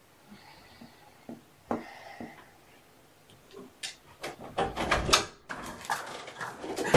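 A quiet start, a couple of knocks, then a busy run of clicks, knocks and rustling in the second half, loudest a little past the middle.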